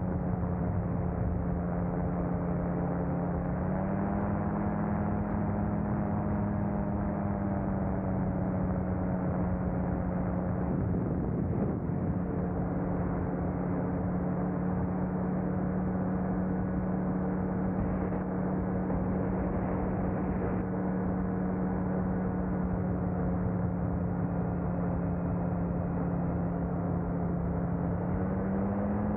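Small aircraft engine of a motorized glider running steadily in flight over a constant rush of air. Its note dips near the start, rises a few seconds in, settles back, and rises again near the end as the throttle changes.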